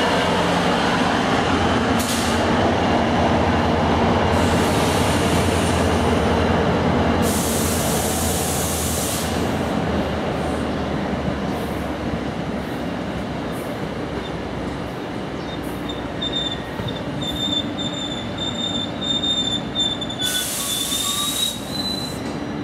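An NJ Transit Alstom PL42AC diesel locomotive's engine hums as it goes by and fades while its Comet passenger coaches roll past, slowing into the station. From about two-thirds in, a high, steady wheel squeal comes from the train, rising slightly in pitch near the end. Two short rushes of hiss come about a third in and near the end.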